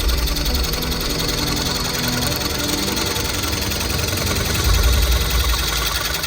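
Wood lathe running while a turning tool cuts a cracked oak blank, a continuous rapid chatter over a low rumble that grows louder near the end.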